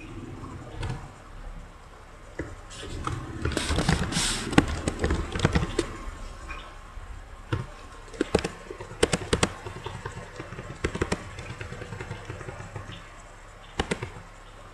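Computer keyboard typing in a quick run of key clicks, then scattered single mouse clicks.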